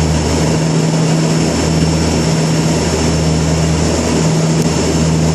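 Inside the cockpit of a de Havilland Canada Dash 8-200 on approach: the twin turboprops give a steady low propeller drone with a hum that swells and fades slowly, over even rushing noise.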